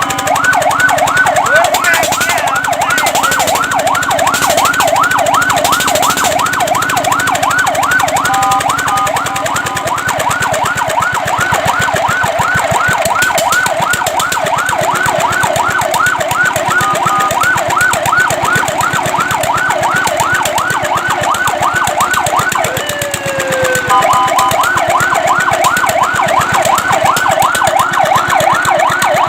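Fire truck siren in a fast yelp, its pitch sweeping up and down about three to four times a second. It breaks briefly a few times into a steady held tone, and once, near the end, into a pitch that slides down before the yelp resumes.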